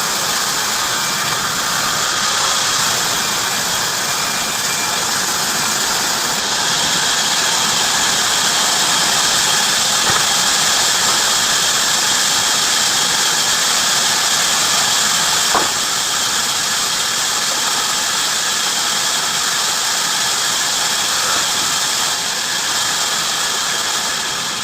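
Heavy-duty industrial band saw running steadily through wood, a continuous high hiss and squeal of the blade in the cut. A single short click about halfway through.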